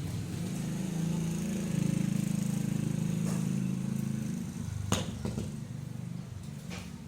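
A motor or small engine running with a low hum that swells over the first few seconds and then fades, with a few sharp clicks over it.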